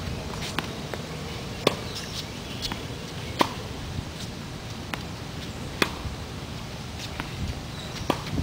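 Tennis ball struck with a racket in a rally: sharp pops every two seconds or so, with fainter hits and bounces between them.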